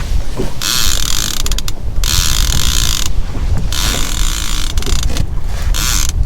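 Fishing reel ratchet clicking in four bursts of about a second each, with short gaps between, over a steady low rumble from the boat.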